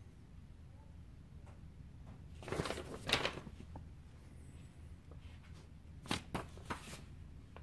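Faint handling noises from a Makita jobsite Bluetooth speaker being turned over and its buttons and compartments tried: a few short clicks and rustles in two brief clusters, about two and a half seconds in and again about six seconds in.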